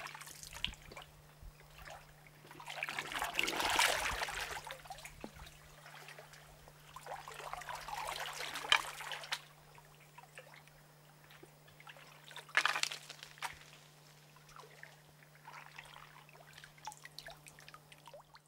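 Gentle water splashing and trickling that swells up a few times, about four, eight and thirteen seconds in, over a faint steady low hum.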